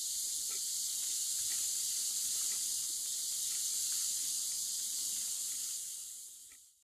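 Steady high hiss with a faint tick about once a second, like a clock ticking. It fades out in the last second and then cuts to silence.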